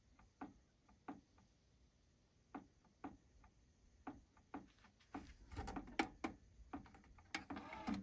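Faint, irregular mechanical clicking from a Technics RS-TR373 dual cassette deck, then louder clicks and clatter over the last three seconds as its transport buttons are pressed.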